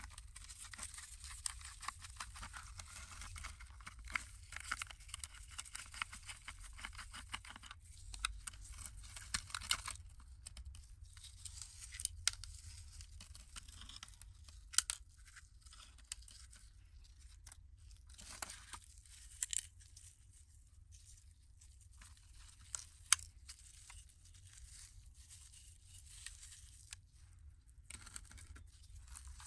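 Screwdriver unscrewing small screws from the plastic chassis of a die-cast model car, heard as a dense scratchy grinding with the rub of rubber-gloved hands for about the first ten seconds. After that come scattered sharp clicks and taps as the plastic chassis is pulled off the metal body and handled on a wooden surface.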